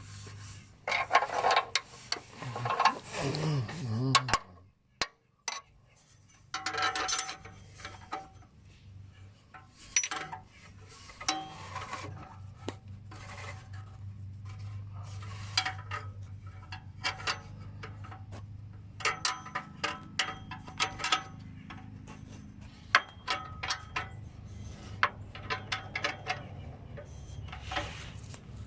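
Hand tools and metal exhaust parts clinking, scraping and tapping while an exhaust is being fitted, a run of irregular clicks and clanks with brief metallic ringing.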